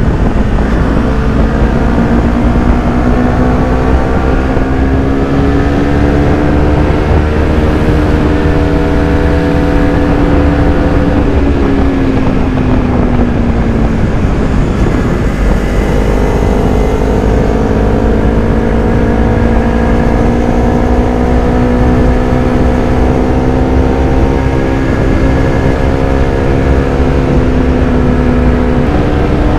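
Motorcycle engine under way at steady road speed, its pitch climbing slowly, falling off about twelve to fourteen seconds in as the throttle eases, then picking up and holding steady, with a brief step up near the end. Wind rumbles on the microphone underneath.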